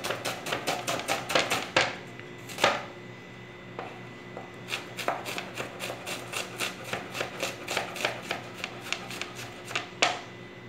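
Large chopper knife chopping onion on a cutting board: fast runs of knife strikes, about five a second, broken by a pause of a second or two. There are a couple of harder single strikes, one near the end.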